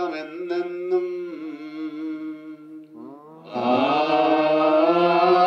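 Malayalam liturgical hymn chanted by a male voice, with a steady held note underneath. About three and a half seconds in, a louder sung phrase begins with a rising slide into the note.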